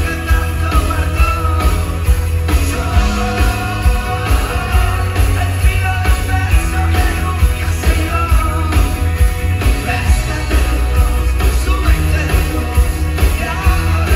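Rock music with a steady beat and heavy bass.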